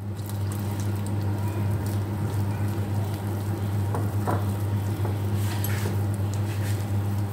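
Wire whisk stirring gram flour and water into batter in a glass bowl: continuous wet stirring with small clicks of the wires against the glass, over a steady low hum.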